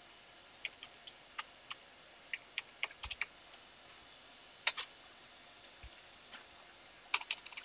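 Computer keyboard keys being typed, sharp separate clicks at an uneven pace, with a quick run of several key presses near the end.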